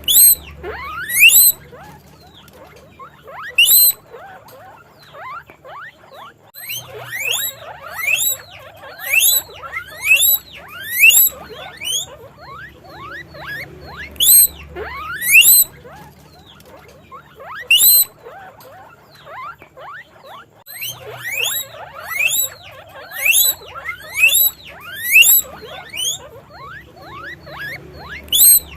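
Several guinea pigs wheeking: loud squeals that each sweep upward in pitch, repeated every second or two in bursts, over many fainter overlapping squeaks.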